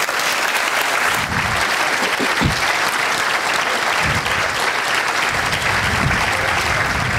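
Audience applauding steadily; the applause breaks out all at once at the close of a speech.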